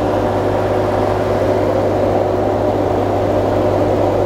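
A 2021 Ram TRX's supercharged 6.2-litre Hellcat V8 idling steadily, heard up close with the hood open.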